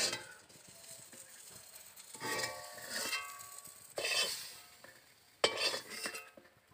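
A metal spatula scraping in an aluminium kadai, then several sharp metal clanks that ring on for a moment, from utensils knocking against the pan and a steel plate.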